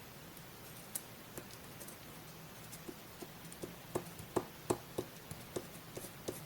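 Close-miked paper collage crafting: a run of small sharp clicks on paper, scattered at first, then coming about two to three a second and loudest in the middle.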